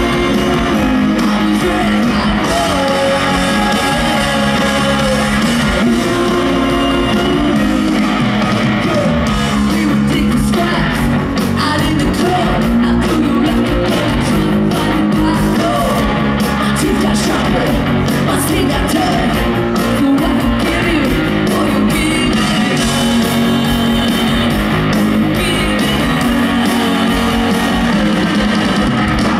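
Live ska-punk band playing loud through a PA: electric guitar, bass and drums, with a woman singing lead. It is a crowd recording of an amphitheatre concert.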